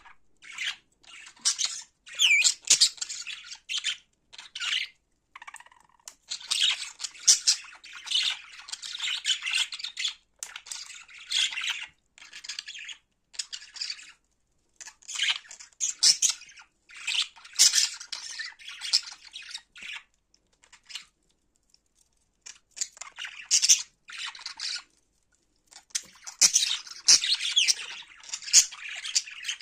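Cockatiels chirping and squawking in quick, high bouts with short pauses between them, and a longer lull past the middle.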